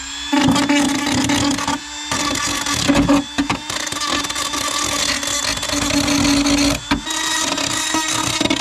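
Handheld electric power tool running under load as it cuts the opening for a flush-fit bilge pump in the boat: a steady motor whine over cutting noise, dipping briefly about two seconds and seven seconds in.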